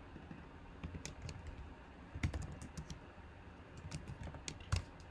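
Faint computer keyboard being typed on: irregular, scattered key clicks, a couple of them louder.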